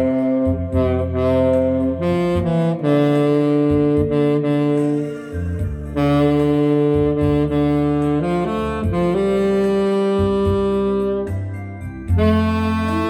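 Saxophone playing a slow melody in long held notes over a recorded backing track with a bass line.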